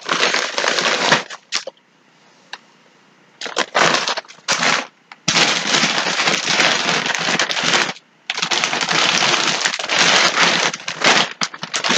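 Plastic packaging crinkling and rustling as it is handled and rummaged through, in several long stretches with short pauses between them.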